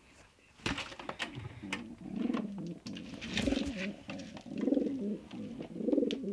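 Homing pigeons cooing, a low warbling coo repeated every second or so. A few sharp knocks and rustling come just before it, about a second in.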